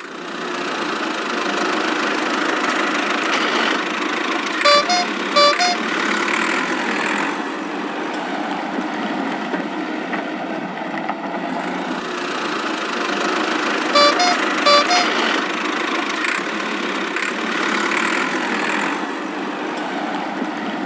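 Cartoon vehicle sound effect: a steady engine running, with a few short car-horn toots twice, about five seconds in and again near the middle.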